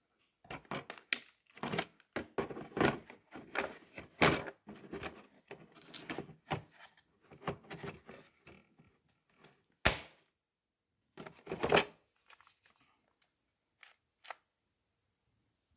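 Handling noise from a cordless reciprocating saw and its battery pack being moved in a hard plastic carry case: irregular clicks, rattles and knocks, with a few louder thunks. The saw's motor does not run.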